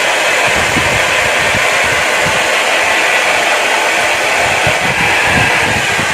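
Foldable hot-and-cold hair dryer running steadily, blowing air on wet hair, with an uneven low flutter under the steady rushing hiss.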